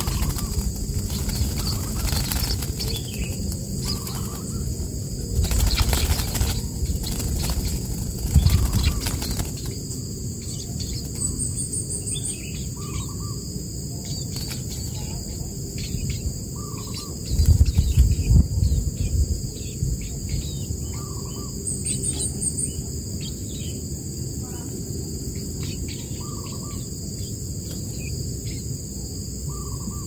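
Nestling songbird beating its wings in the nest, a rapid fluttering in roughly the first ten seconds, over a steady high insect drone. Short calls repeat about every two seconds, with a low rumble about two-thirds of the way through.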